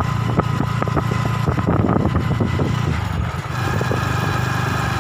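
Small motorcycle engine running, with a few sharp clicks and knocks over the first three seconds. About three and a half seconds in, it settles into a steady even hum as the bike rides along.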